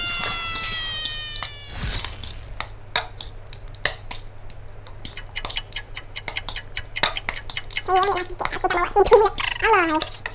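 Metal fork clinking and scraping against a ceramic plate as fried noodles are tossed and mixed, in quick irregular clicks. A held musical note fades out over the first two seconds, and a short voice-like vocal sound comes near the end.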